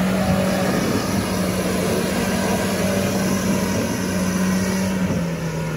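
Lada Niva engine pulling steadily under load as the car crawls through deep mud ruts. Its pitch drops a little near the end as it eases off.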